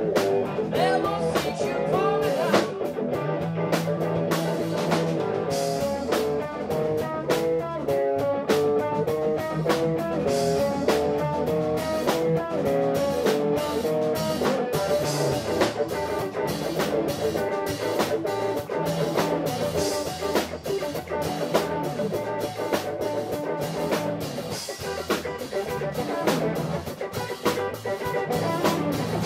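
Live band playing an instrumental R&B jam, with an electric guitar line moving from note to note over bass guitar and a drum kit.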